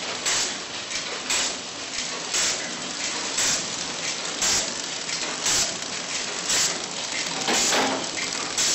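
250D horizontal flow-wrap packaging machine running, wrapping bread buns: a steady mechanical running noise with a short swishing sound repeating about once a second, one cycle per package.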